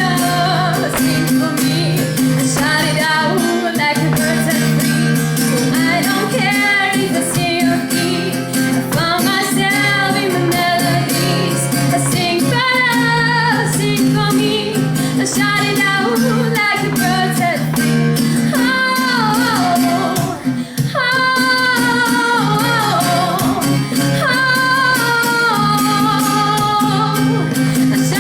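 A woman singing long, gliding notes over strummed guitar.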